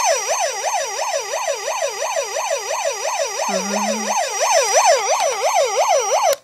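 Battery-powered electronic siren of a 2000 Hess toy fire truck, a fast up-and-down wail sweeping about three times a second, cutting off suddenly near the end.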